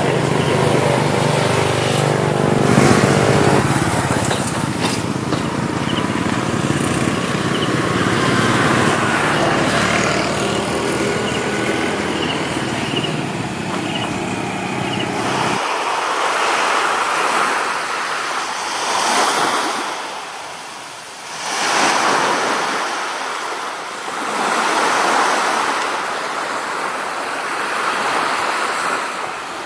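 For the first half there is steady street noise with a low droning hum. About halfway through it gives way to waves breaking on a sandy beach, the surf swelling and fading every three seconds or so.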